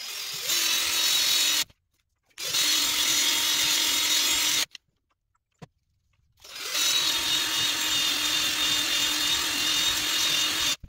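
Ozito cordless drill spinning a foam polishing pad with compound over a plastic display lens: a steady motor whine in three runs, the longest near the end, each starting and stopping suddenly.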